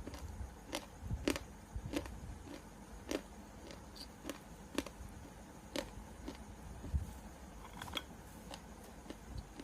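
Close-miked chewing of mixed barfi: irregular sharp wet clicks and crunches, roughly one or two a second.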